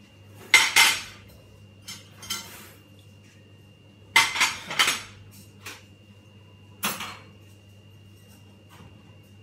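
Dishes and cutlery clattering off to the side in short bursts of knocks and clinks. The loudest come about half a second in and around four to five seconds in, over a steady low hum and a faint steady high tone.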